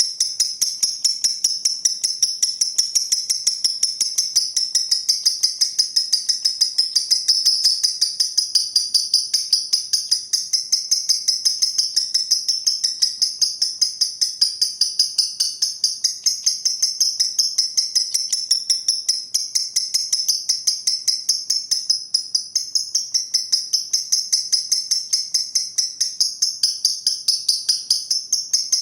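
Green pastel lovebird doing its long 'ngekek' song: an unbroken stream of rapid, high-pitched chattering chirps, kept up without a pause.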